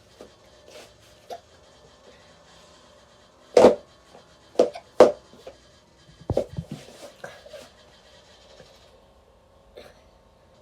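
A person hiccuping: several short, sharp hiccups, the loudest three in quick succession in the middle, followed by a weaker cluster of smaller sounds.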